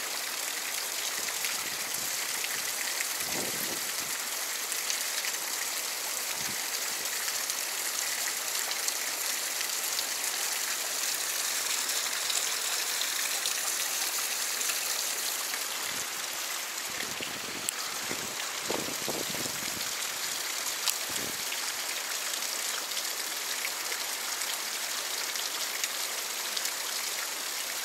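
Stream current rushing steadily over rock: a continuous, even sound of running water.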